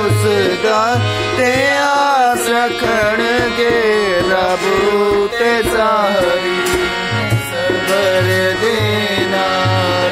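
Harmonium playing a devotional melody of held reed tones, with a hand drum keeping a steady beat of low thuds and a voice singing with gliding ornaments.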